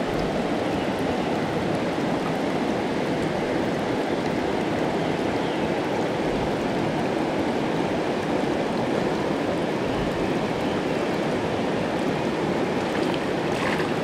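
Mountain stream rushing over shallow stony riffles, a steady even rush of water. Near the end, a brief splash from a hooked rainbow trout thrashing at the surface.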